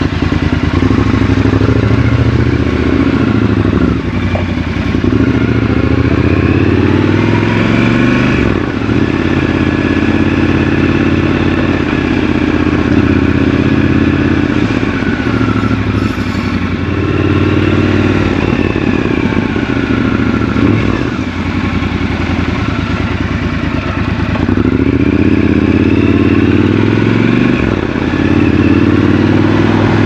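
Triumph Scrambler 1200 XC's parallel-twin engine running as the motorcycle rides at low speed, its revs rising and falling back several times through the gears.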